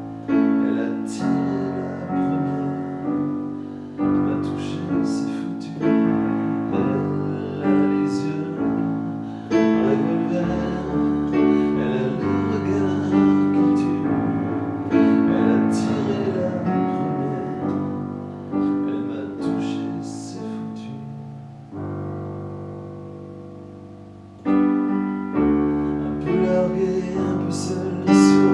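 Solo piano playing a slow passage of chords and melody, each note struck and fading. About three-quarters of the way through, one chord is held and left to ring out for a couple of seconds before the playing picks up again.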